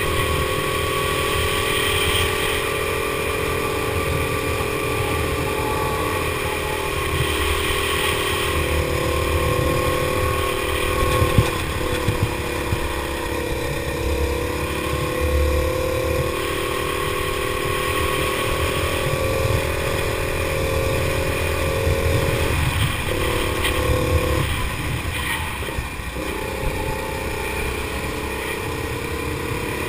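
Go-kart engine heard from on board, running hard at high revs. Its pitch sags as the kart slows for corners and climbs again as it accelerates out. There is a low rumble throughout and a single sharp knock about a third of the way in.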